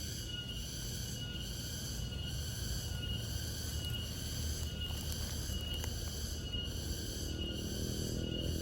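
Cricket chirping in a steady rhythm, a little over one chirp a second, over a low outdoor rumble.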